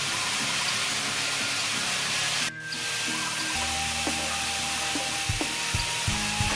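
Steady hiss of water spraying from a PVC pipe nozzle into a large metal basin, with music in the background. The hiss dips briefly about two and a half seconds in.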